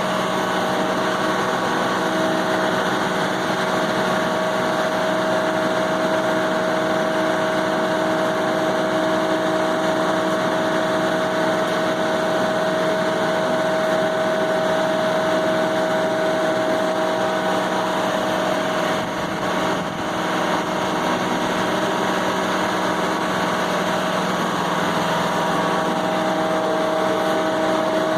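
An engine running steadily at constant speed, with a steady whine over it; the level dips briefly about two-thirds of the way through.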